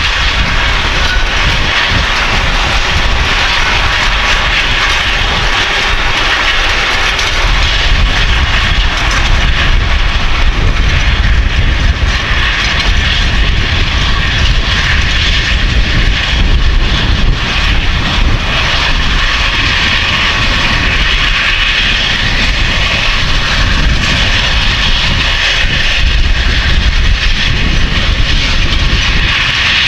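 Case IH Quadtrac 620 tracked tractor's diesel engine running steadily and loudly while pulling a Köckerling Vario cultivator and a Brix roller, with a deep rumble and a broad rushing noise over it and no change in pitch.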